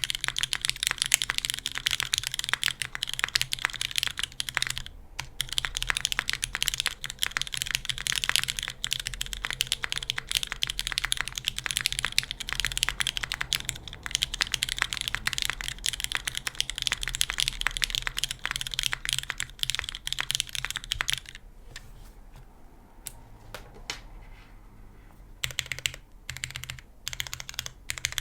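Top-mount Kalam Merisi Ottantaquattro mechanical keyboard with lubed Cherry MX Black linear switches, carbon fibre plate and GMK keycaps, typed on fast and steadily. The typing stops about three quarters of the way through, and a few separate keystrokes follow near the end.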